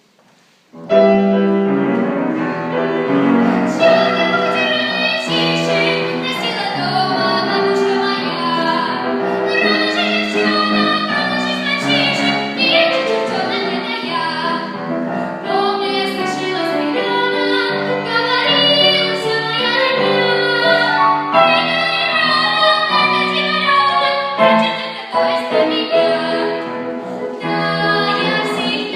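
A song starts about a second in: a sung melody, tagged as a female or child voice, over instrumental accompaniment.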